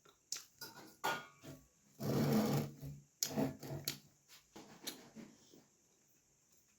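Close-miked eating sounds of puri and vegetable curry: chewing, with scattered mouth clicks and smacks and a short rustling burst about two seconds in.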